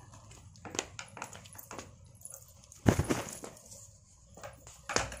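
Hard plastic parts of a toddler tricycle clicking, rattling and knocking as they are handled and fitted together during assembly, with a heavier thud about three seconds in and another knock near the end.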